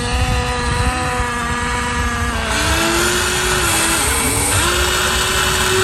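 Small electric motors of radio-controlled construction models whining steadily. The pitch steps down to a new steady tone about halfway through.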